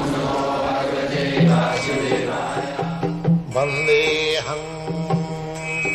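Indian devotional intro music: a chanted mantra with instrumental accompaniment. Short, regularly spaced percussive strokes come in over sustained notes after the first couple of seconds.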